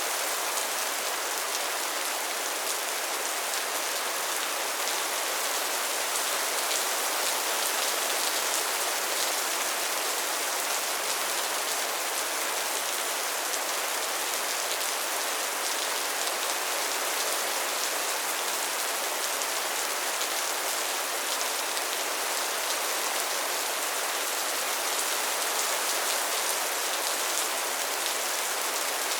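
Steady rain falling: a dense, even hiss of raindrops with fine individual drop ticks and little low rumble.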